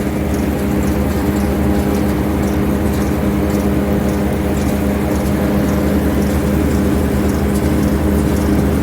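Tractor-driven maize silage chopping machinery running with a steady, even engine drone.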